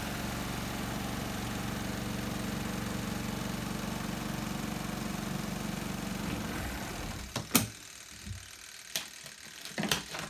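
Spin dryer motor of a Costway mini twin tub washing machine running with a steady hum, dying away about seven seconds in. Then a few sharp plastic clacks as the spin lid is opened and the inner spin cover is handled.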